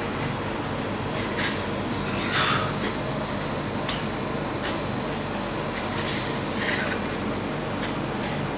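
Flat metal spatula scraping frozen ice cream along a cold steel plate as it rolls it up, a handful of short scrapes, the loudest a little over two seconds in. A steady hum runs underneath.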